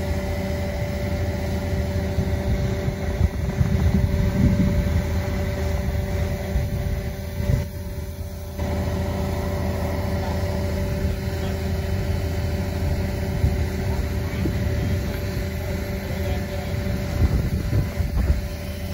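Heavy diesel machinery running steadily: a low engine rumble with a steady whine over it. It dips briefly about eight seconds in.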